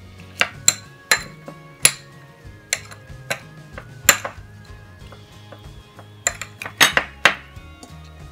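Metal spoon clinking against a small ceramic bowl as a chaat mixture is stirred: about a dozen sharp, irregular clinks, coming closer together near the end. Background music plays underneath.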